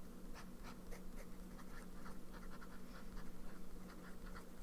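Fountain pen nib scratching across paper in many quick short strokes as words are handwritten. The pen is a Sailor Pro Gear Slim with a 14-karat gold medium nib, which has the feedback typical of Sailor nibs. A faint steady hum runs underneath.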